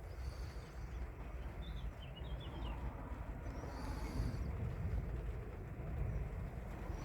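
Steady low background rumble with a few faint bird chirps about two seconds in.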